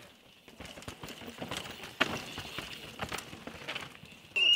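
Downhill mountain bike riding over rocks and roots: tyres, chain and suspension clattering in a run of sharp knocks, the loudest about two seconds in. A loud pitched sound with several tones cuts in suddenly just before the end.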